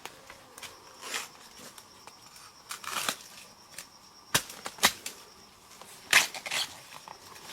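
Irregular crunching, rustling and sharp cracks, the loudest a few seconds in, over a faint steady high insect drone.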